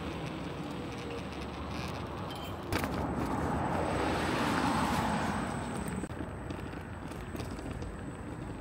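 A car driving past on a city street, its tyre and engine noise growing louder to a peak about four to five seconds in, then fading. A short sharp click comes about three seconds in.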